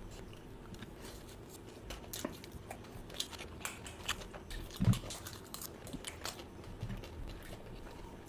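A person eating close to the microphone: chewing and biting food, with many small wet clicks and crunches and one louder thump about halfway through.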